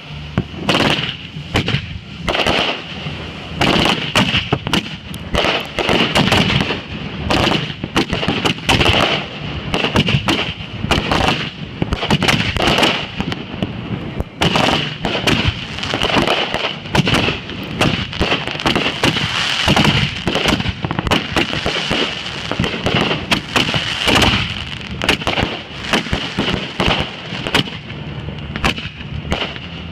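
Fireworks going off in a dense, rapid barrage of bangs and crackles, with a steady high-pitched whine beneath them.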